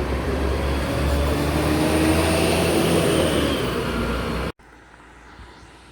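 Rail replacement bus engine running loud as the bus pulls away, its pitch rising as it accelerates. The sound cuts off abruptly about four and a half seconds in, leaving much quieter outdoor background.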